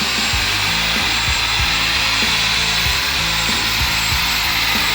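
A 1150-watt electric drill running at a steady speed, an even whir with a faint high whine. Background music with a steady beat plays underneath.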